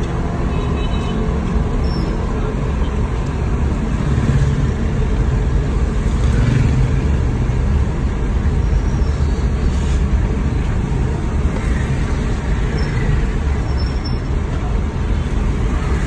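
Steady cabin noise inside a small car driving slowly through rain: engine and tyres on a wet road, with rain on the car body.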